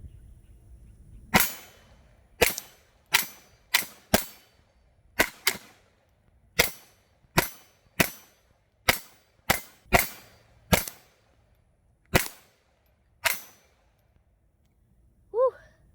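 A Taurus TX22 .22 LR pistol fired about sixteen times at an uneven pace, single shots and quick pairs, each a sharp crack with a short ring-off. A brief pitched sound with a falling pitch follows near the end.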